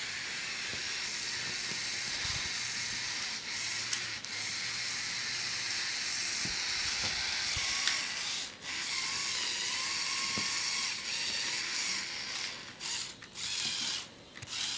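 Lego Technic trial truck's large electric motor and geared four-wheel-drive drivetrain running with a steady high whir, cutting out briefly a few times, most often near the end.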